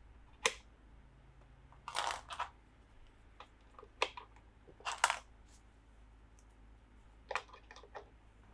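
Small plastic toy pieces being handled and set down: scattered sharp clicks and taps, with a short cluster of them about two seconds in and the loudest click about five seconds in.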